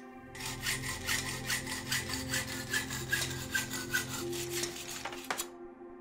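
Rapid back-and-forth sawing strokes, several a second, stopping a little after five seconds in, over soft background music.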